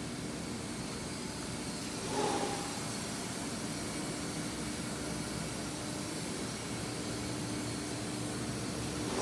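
Steady hum and hiss of running factory machinery. A faint steady low tone comes in about four seconds in. About two seconds in there is one short, louder burst of hiss with a brief tone.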